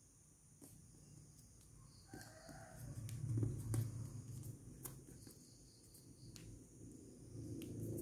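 Faint clicks and light rustles of origami paper being creased and folded by hand, over a low background rumble that swells about three seconds in and again near the end.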